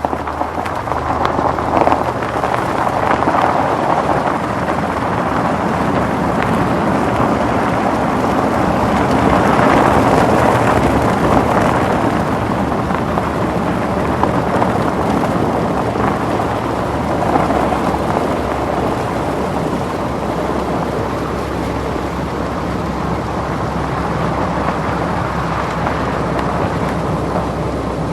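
Car driving on a wet, snowy road after a snowfall: a steady hiss of tyres on the wet surface over a low engine hum, swelling and easing a few times.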